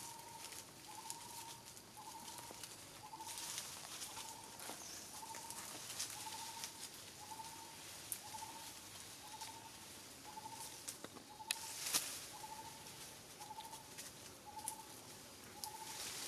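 A bird calling one short, slightly rising note over and over, about once a second, with scattered faint clicks and rustles and a sharper click about twelve seconds in.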